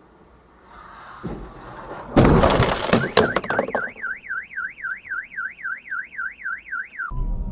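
Two cars colliding: a loud crash about two seconds in, with a few sharp clattering hits just after. Then a car alarm wails in a fast up-and-down warble, about three and a half sweeps a second, until it cuts off near the end.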